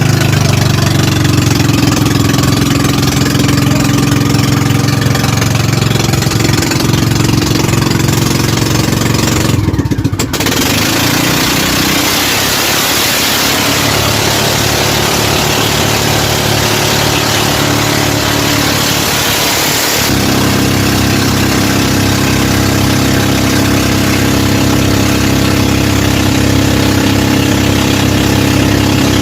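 Boat engine running steadily during the boat's trial run. Its note changes abruptly twice, about a third and two thirds of the way through, with more hiss in the middle stretch.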